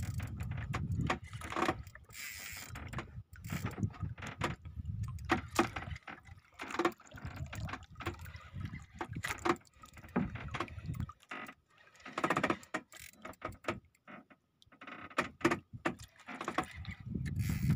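Spinning reel being cranked and the rod handled while fighting a fish on the line: irregular clicks and knocks over a low rumble.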